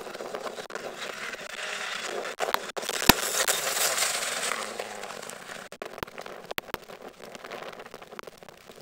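Rally car at speed on a gravel special stage passing close by: engine and tyre-on-gravel noise swells to its loudest about three to four seconds in, then fades as the car drives away. Several sharp cracks punctuate the pass, loudest about three seconds in.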